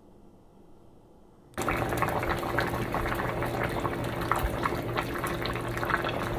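Pot of chicken soup at a full boil, bubbling and popping steadily; the sound cuts in suddenly about a second and a half in.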